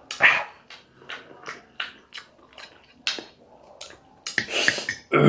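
A man panting and hissing short, sharp breaths through his mouth from the burn of Tabasco hot sauce, with a longer, louder breath about four seconds in and a voiced groan starting at the very end.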